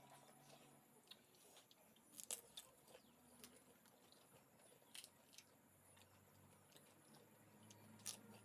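Faint crunching and chewing while eating pani puri: the crisp shells crack with a few sharp crunches, the clearest about two, five and eight seconds in, with softer chewing clicks in between.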